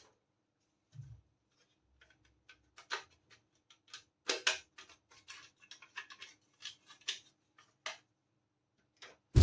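Small plastic and metal toy kitchen pieces being handled and set down, making irregular light clicks and taps with a couple of sharper knocks near the middle.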